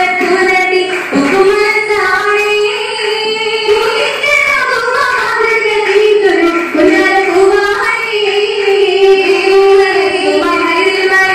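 Girls' voices singing an Oppana song together in unison, one continuous melody line.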